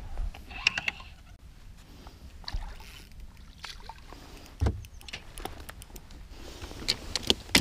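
Scattered light clicks and small knocks of a spinning rod and reel being worked while a hooked spotted bass is reeled in, with a quick run of sharper clicks near the end.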